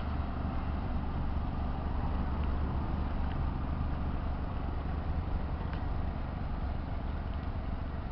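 Suzuki Cappuccino's small engine idling, a steady, even low rumble.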